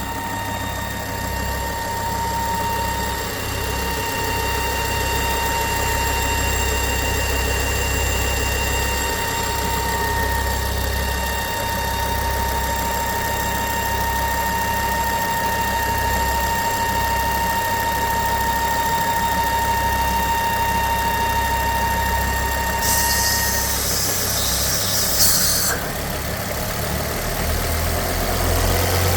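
Ford S-Max 2.5T five-cylinder turbo engine idling with a steady high-pitched whine over its rumble. The whine is the sign of strong crankcase vacuum from a torn oil filter housing (crankcase breather) diaphragm. Near the end the whine stops and a hiss follows for a few seconds.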